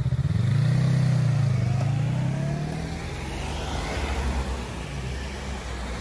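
A motorcycle engine passes close by, loud at first, its note fading after about three seconds into steady road traffic noise.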